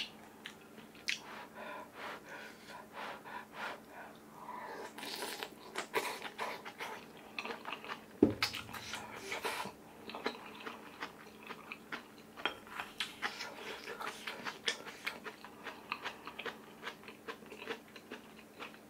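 Close-up chewing of kimchi and rice: many short, wet, crunchy bites and smacks. One loud thump about eight seconds in.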